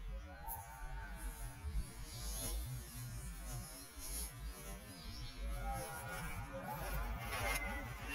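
Low uneven rumble of wind and handling on the microphone, with faint wavering whines from rough collie puppies about a second in and again near the end.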